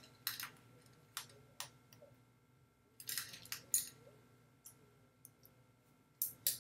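Small crystal beads and clear tape being handled on a cutting mat, giving quiet, scattered clicks and taps. There is a pair near the start, another pair about a second in, a quick cluster around three seconds, and two more near the end.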